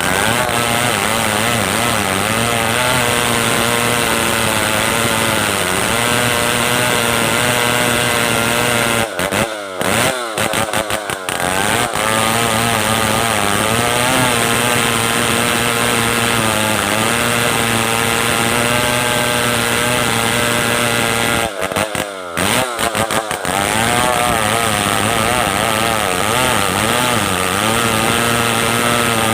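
Stihl 070 two-stroke chainsaw running at high revs while ripping lumber, its pitch wavering as it works in the cut. Twice the engine note briefly breaks up and dips, about nine seconds in and again around twenty-two seconds.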